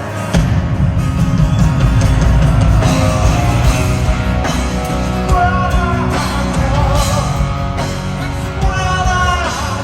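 A rock band playing live with a lead singer. A strummed guitar leads in, then bass and drums come in hard about a third of a second in, and the full band plays on under the vocal.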